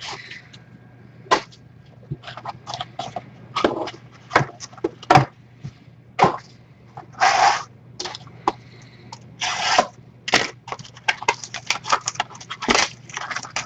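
Trading card packaging being handled and opened: plastic wrapper crinkling and crackling with irregular clicks. Two longer tearing or scraping rasps come about seven and nine and a half seconds in, and the crackling grows denser near the end.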